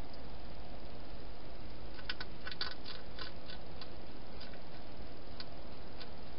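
A hedgehog eating at a food bowl: a quick run of sharp clicks about two seconds in, then three single clicks, over a steady hiss.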